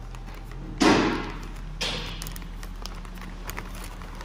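Clear plastic zip-top bags of line plugs and caps being handled: one loud thump about a second in, a lighter knock a second later, then faint crinkles and clicks.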